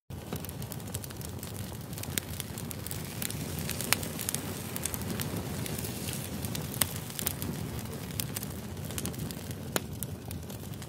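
Steady low crackling noise, with many scattered sharp clicks and pops and a few louder snaps.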